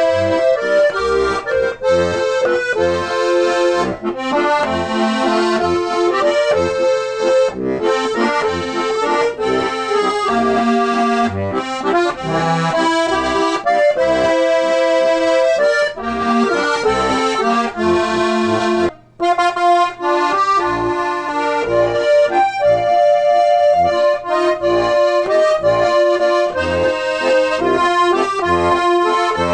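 Accordion playing a traditional tune: sustained chords and melody over a steady pulsing bass, with a brief break about 19 seconds in.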